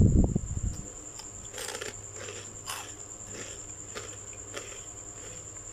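Crunchy chocolate balls being chewed, a short crisp crunch roughly every half second. A cricket trills steadily in the background.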